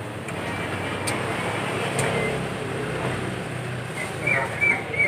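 Steady hum of passing road traffic. About four seconds in, a run of short, high-pitched clinks starts.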